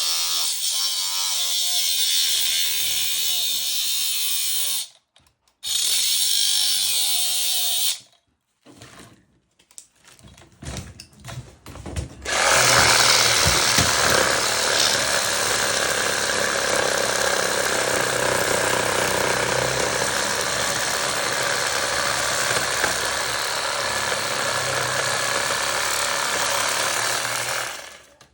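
Handheld power tool cutting into a compressor's metal casing. It runs for a few seconds, stops briefly, starts again, and is pulsed on and off in short bursts before a long steady cut that stops just before the end.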